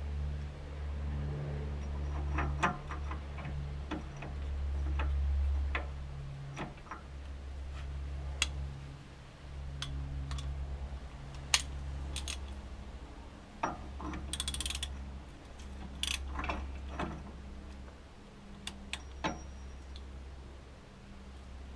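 Scattered metallic clicks and clinks of hand tools working the new upper ball joint into the top of the front hub, over a low hum that stops and starts every second or two.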